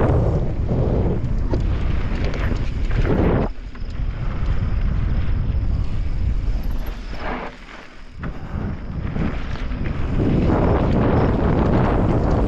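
Wind buffeting the camera microphone while a mountain bike rolls over a dirt trail, with tyre rumble and sharp knocks and rattles from the bike over rough ground. The rush eases briefly twice, about three and a half and eight seconds in.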